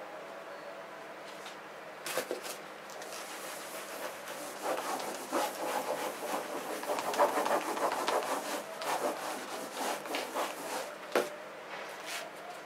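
Baren rubbed in quick back-and-forth strokes over the back of paper laid on an inked woodblock, taking a print. A few clicks come about two seconds in, and a single sharp knock comes near the end.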